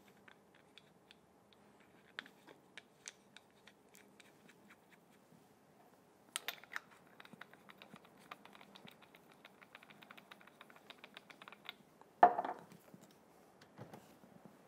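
Bicycle suspension fork being handled on a workbench: scattered light clicks and taps, then a rapid run of small clicks lasting about four seconds from around the middle, and one louder knock near the end.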